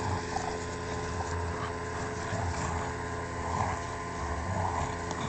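Dogs growling in short, intermittent low rumbles during tug-of-war play, a Bouvier des Flandres puppy and a German Shepherd pulling on a toy, over a steady hum.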